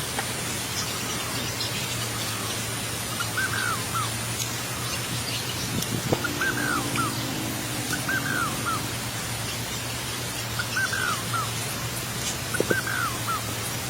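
A bird calling over and over, a short arched call repeated about every two seconds, over a steady low hum and background hiss. A knock sounds about six seconds in and another near the end.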